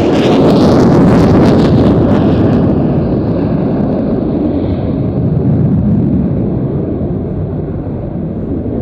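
Military jet engine roaring past, loudest about a second in, then fading as the hiss dies away and a lower rumble lingers.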